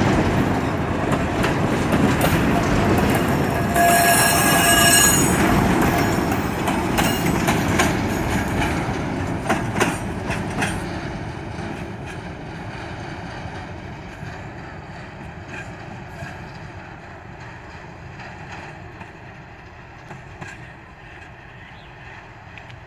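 Freight train of grain hopper and tank cars rolling past close by, its wheels rumbling and clacking over the rail joints. A high-pitched wheel squeal comes about four seconds in, and a quick run of clacks near ten seconds. After about eleven seconds the sound drops to a quieter rumble as the train moves away.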